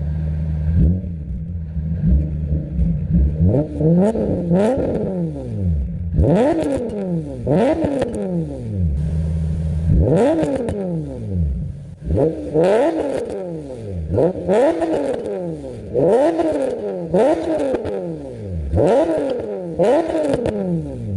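Infiniti G35 coupe's 3.5-litre V6 revved over and over in quick blips from idle, each rev climbing and falling back, heard through its exhaust with ISR resonated test pipes in place of the catalytic converters. It idles steadily for about the first second before the revving starts.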